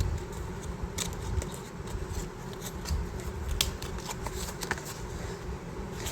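Small packaging being handled and opened by hand: scattered light clicks and rustles, about a dozen irregular ticks over a steady low hum.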